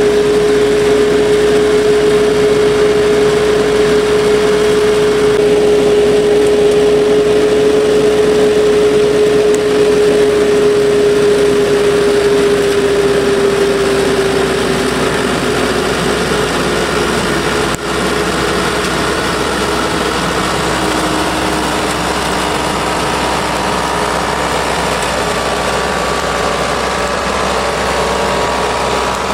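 Tractor engine running with the hydraulically driven rotary head of an olive under-canopy trimmer spinning and cutting low olive branches. A steady high whine sits over the machine noise and slowly drops in pitch a little past the middle.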